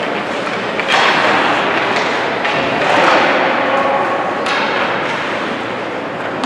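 Ice hockey rink during a youth game: a steady din of spectators' voices and arena noise, with sudden thuds and slaps from sticks, puck and boards.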